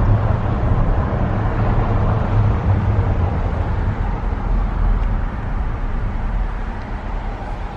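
Car driving slowly, a steady engine and road rumble that eases slightly near the end.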